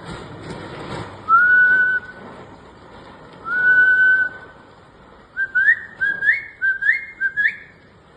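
A person whistling in imitation of a bird call: two long, level whistles, then four short rising whistles in quick succession.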